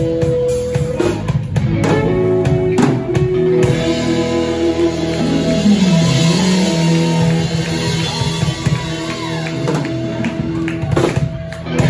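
Live instrumental rock jam on electric guitars and drum kit, a lead guitar holding and bending notes over the drums. Several sharp drum hits land near the end.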